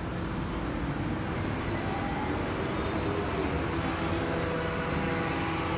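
2006 Prius electric A/C compressor running with a steady whine and buzz, its motor free-spinning at about 9,700 RPM with no load. The motor has broken from the compressor shaft, so it turns nothing and moves no refrigerant.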